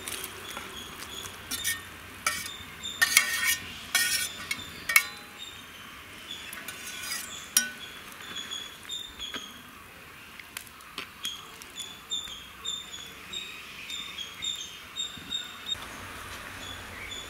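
Steel slotted spoon clinking and scraping against a steel plate as fried cauliflower pieces are tipped into a simmering curry, a run of sharp clinks from about one and a half to five seconds in, then lighter taps and scrapes of the spoon in the pot. Short high chirps repeat in the background throughout.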